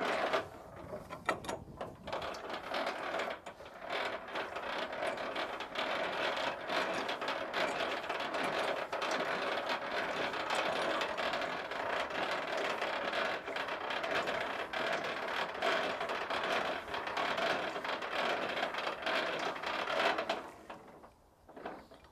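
Semi-trailer landing-gear crank being turned in high-speed gear: the leg gearbox clicks and rattles rapidly as the legs wind down. It stops near the end, when the legs are on the ground.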